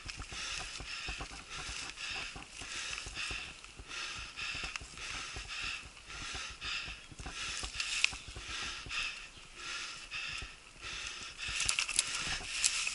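Mountain bike rolling along a dirt forest singletrack: tyres running over dry leaf litter and the bike rattling, with sharper clicks and knocks near the end.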